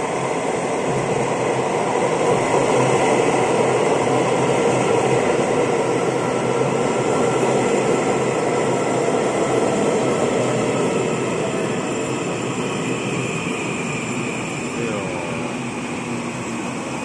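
Taiwan Railways EMU800-series electric commuter train pulling into the platform and slowing to a stop: a steady rumble of wheels on the rails, loudest a few seconds in and easing off toward the end, with a motor whine that drops in pitch as it slows.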